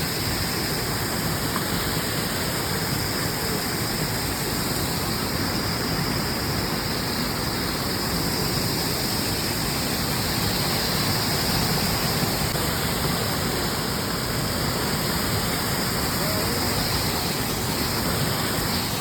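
Steady rushing of water, an even roar that holds level throughout.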